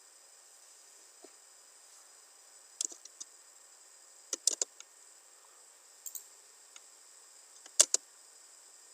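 Scattered sharp clicks of a computer mouse and keyboard, several coming in quick pairs, over a faint steady hiss.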